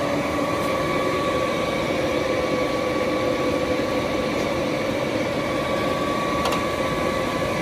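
Summit 24 x 120 engine lathe running with its spindle turning: a steady mechanical hum with a steady whine from the drive and headstock gearing.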